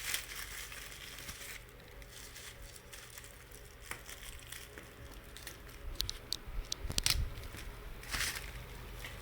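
Small clicks and crinkling handling noises from working on a laptop's internals, with a cluster of sharp clicks about six to seven seconds in and a short rustle just after.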